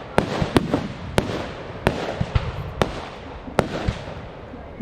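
Aerial fireworks bursting: a string of about eight sharp bangs at uneven intervals, some followed by a short echo, with crackling between them.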